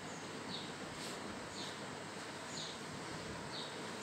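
A small bird chirping faintly in the background: a short, high chirp about once a second over a steady low hiss.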